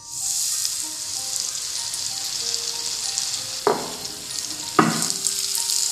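Achappam mould coated in rice batter plunged into hot oil: the oil bursts into loud sizzling the instant it goes in and keeps frying steadily. Two brief knocks in the second half.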